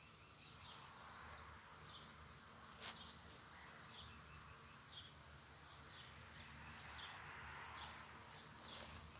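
Faint outdoor quiet with distant birds chirping now and then, and a few soft rustles of potting soil being sifted by hand.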